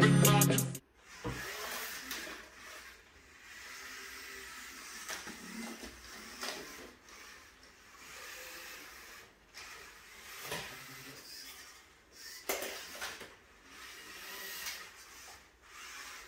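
A music sting ends within the first second. Then a LEGO Mindstorms EV3 robot's motors whir faintly in short spells as it drives and works its attachments, with a few sharp clicks from its plastic parts in between.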